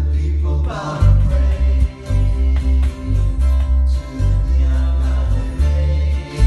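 Music: a song sung over acoustic guitar with a strong bass line.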